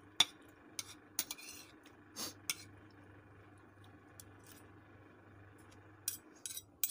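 Metal spoon and fork clinking and scraping in a bowl of rice while eating: several sharp clicks and short scrapes in the first two and a half seconds, a quiet stretch, then a few more clicks near the end. A faint steady low hum runs underneath.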